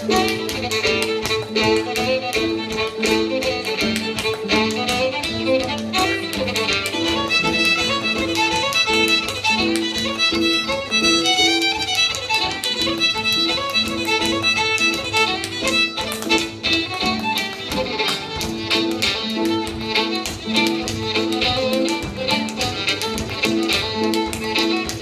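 Fiddle tune with the rapid, rhythmic taps of a step dancer's shoes on a hard floor.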